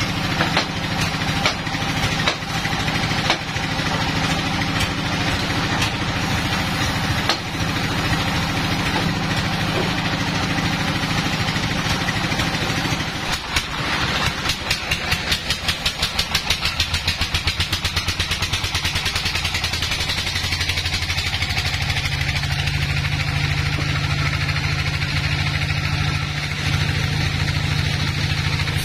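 Log band sawmill's belt-driven machinery running steadily, with several sharp knocks in the first half as the log is hammered into its clamps on the carriage. A little past halfway comes a few seconds of rhythmic pulsing, about three a second, then a steadier, lower hum as the blade cuts into the teak log.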